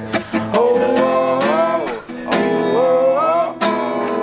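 Music: strummed acoustic guitar under a held, wordless sung vocal line that slides up and down in pitch.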